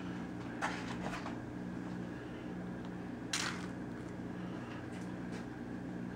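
Quiet room tone with a steady low hum, broken by a few faint short clicks about half a second, one second and three and a half seconds in.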